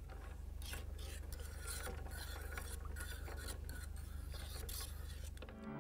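A spoon stirring shell pasta in broth in an electric skillet, scraping along the bottom of the pan in repeated strokes, about two or three a second.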